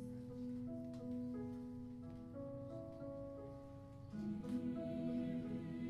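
Soft instrumental music of held notes, growing louder and fuller about four seconds in.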